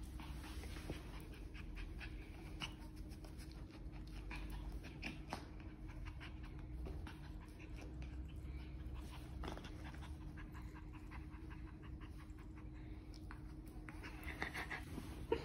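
A small puppy panting faintly, with scattered light ticks over a low steady hum.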